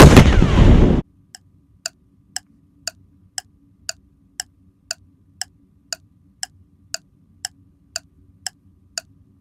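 A loud explosion sound effect lasting about a second, then steady clock-like ticking at about two ticks a second over a faint low hum.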